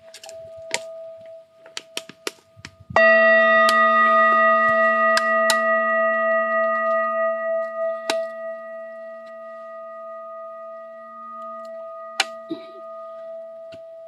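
A metal singing bowl held on the palm is struck once about three seconds in and rings on, a low hum with several higher overtones above it, fading slowly over about ten seconds. A fainter ring from the bowl is already sounding before the strike, with scattered small clicks and taps from handling.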